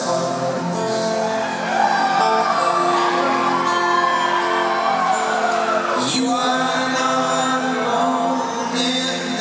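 A folk-rock band singing live, several male voices holding long notes in close harmony while one voice sings a line that rises and then falls back.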